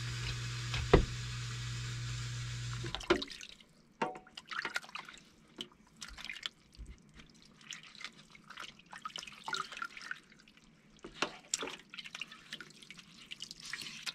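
Dishes washed by hand at a kitchen sink: water splashing and dripping, with light clinks and knocks of utensils. A steady humming noise runs for about the first three seconds and cuts off suddenly.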